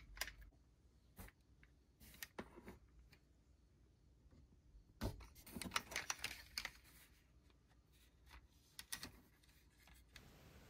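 Faint, scattered clicks and taps of small plastic parts being handled: a styrene strip and a plastic toy car turned over in the hands, with a short run of clicks about five to seven seconds in.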